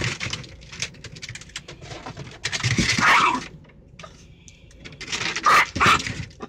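Chihuahua barking in short bursts, loudest twice near the end, with claws clicking and scrabbling on a car dashboard in between.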